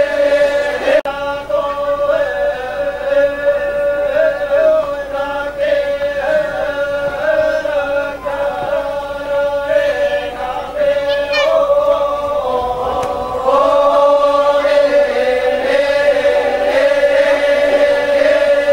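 A group of voices chanting a funeral chant together on a steady held note, with melodic lines weaving above it. It grows louder about two-thirds of the way through.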